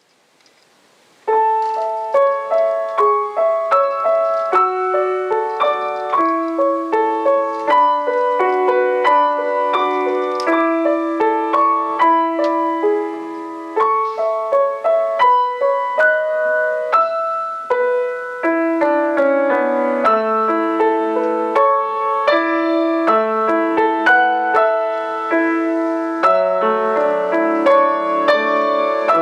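Piano music starting about a second in, with chords and a melody line.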